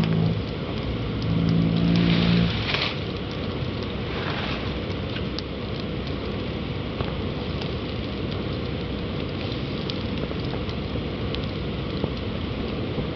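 Steady rushing noise with scattered crackles and ticks as molten aluminium is poured into a lost-foam sand mould and the foam pattern burns off in flames. A low humming tone sounds twice in the first two and a half seconds.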